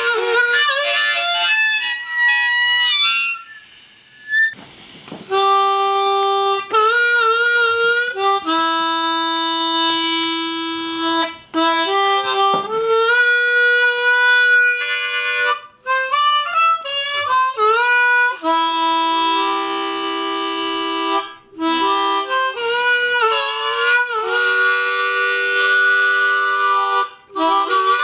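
Blues harp (harmonica) played solo: long held chords and single notes with wavering vibrato and sliding bends, broken every few seconds by short pauses for breath.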